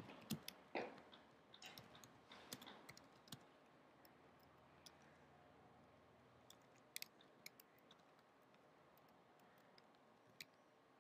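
Faint computer keyboard typing: a quick run of key clicks in the first few seconds, then only a few scattered clicks.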